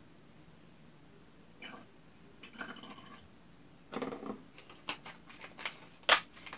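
Water poured from a plastic water bottle into another plastic bottle in a few short splashes, then the thin plastic bottle crackles and clicks sharply several times as it is handled.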